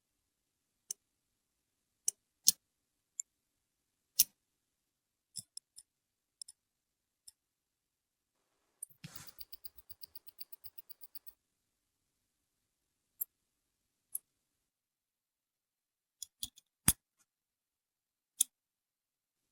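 Small metal watchmaker's tools clicking and tapping against the parts of a Rolex Daytona 4130 chronograph movement during disassembly: sharp single clicks every second or so, with a quick run of fine ticks a little before halfway through.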